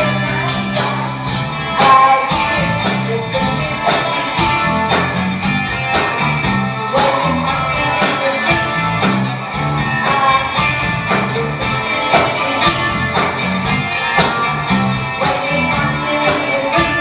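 A live rock band playing: a drum kit keeps a steady, even beat under a stepping bass line and electric guitars.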